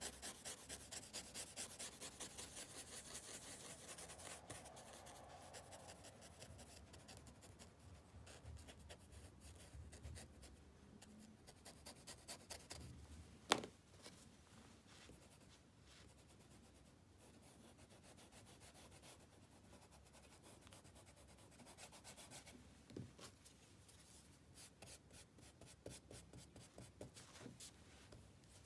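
A paper blending stump scrubbing charcoal on thin paper in faint, quick back-and-forth strokes, thickest in the first several seconds and again near the end, with one sharp tap about halfway through.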